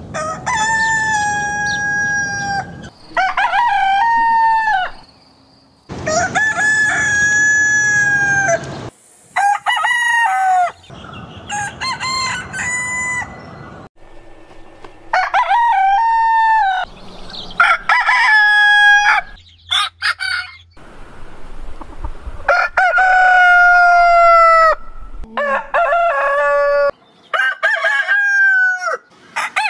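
Roosters crowing one after another, about ten long cock-a-doodle-doo crows from different birds, each cut off abruptly as the next begins.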